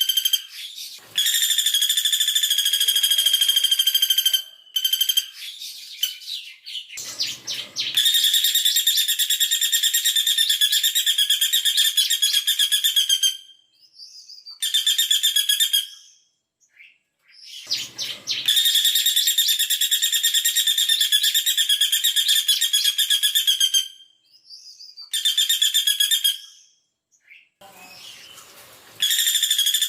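A female caladi bawang woodpecker gives its 'tembakan' call, long trills of very fast, closely spaced high notes. Each run lasts a few seconds, with short pauses between runs.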